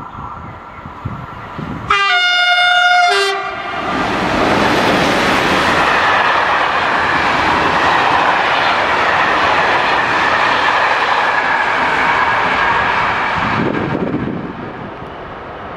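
A locomotive horn sounds once, for about a second and a half. A freight train of covered hopper wagons then rolls past, making a steady rushing rumble of wheels on rail that dies away near the end.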